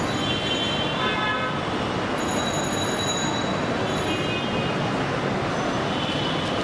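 Busy city street traffic: a steady din of passing vehicles with several short, high-pitched toots.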